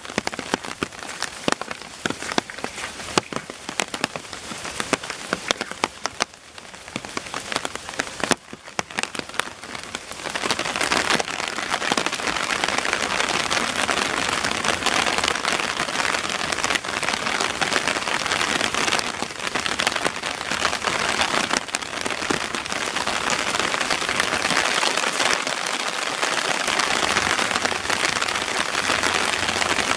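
Rain falling. For the first ten seconds or so separate drops land as sharp ticks over a lighter shower; then it thickens into a dense, steady, louder downpour.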